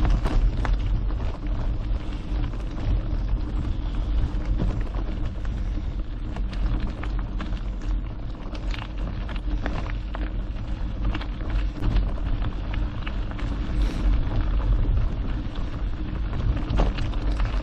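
Mountain bike rolling along a gravel trail: tyres crackling over loose stones, with many scattered clicks and rattles over bumps. A steady low rumble of wind on the action camera's microphone runs underneath.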